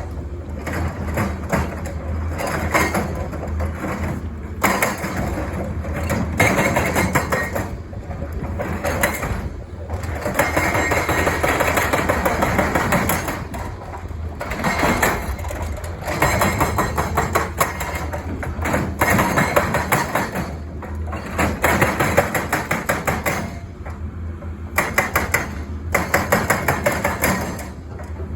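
Hydraulic breaker hammer on a Caterpillar 320 excavator pounding in rapid runs of blows lasting a few seconds each, with short pauses between runs, over the steady run of the excavator's diesel engine.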